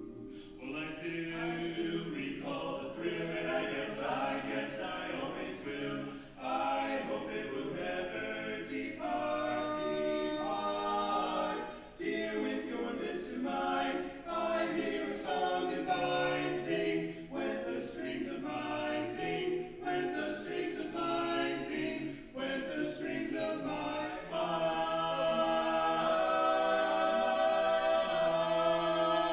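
Male vocal quartet singing a cappella in close harmony, with no instruments. Near the end the four voices settle onto one long, louder held chord that closes the song.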